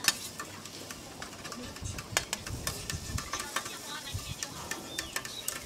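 Metal scraper and spatula clicking and scraping against a flat steel griddle at irregular intervals as a pancake on it is pressed, cut and moved, with food sizzling underneath.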